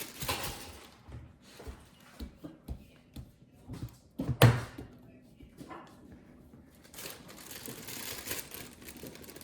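Kitchen items being handled: scattered light clicks and knocks with one sharp knock about four and a half seconds in, then a soft rustling of packaging.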